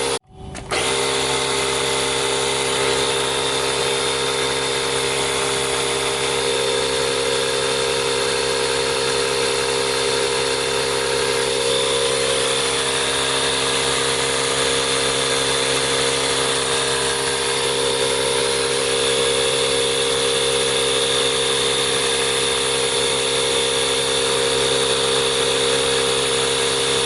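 Small 12-volt tire-inflator compressor from a Chevy Volt's tire repair kit running steadily, pumping air into the tire. The sound drops out for a moment just after the start.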